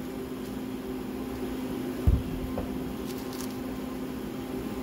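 Steady background hum, with one dull thump about two seconds in as a glass mug is set down on a plywood workbench, and a few faint ticks of handled tape a second later.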